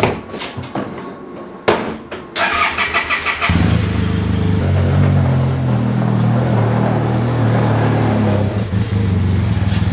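A few knocks as the driver climbs into an Arctic Cat Wildcat Sport 700 side-by-side, then its starter cranks for about a second and the parallel-twin engine catches and runs steadily, its pitch stepping up slightly a second later.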